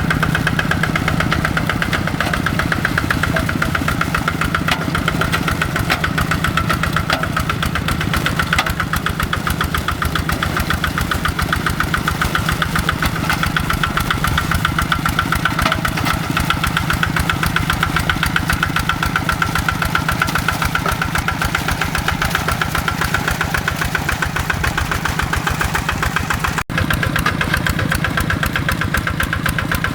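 Kubota RD85 single-cylinder diesel engine of a hand tractor running steadily, with a rapid, even knocking beat. The sound drops out for an instant near the end.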